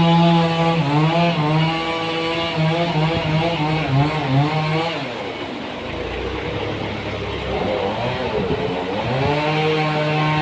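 Engine of a log sawmill running. Its speed drops about five seconds in, runs low and rough for a few seconds, then picks back up near the end.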